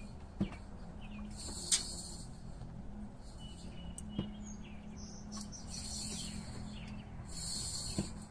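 Outdoor ambience: small birds chirping and whistling, with insects buzzing in spells of about a second, a steady low hum underneath, and a few sharp clicks, the loudest about two seconds in.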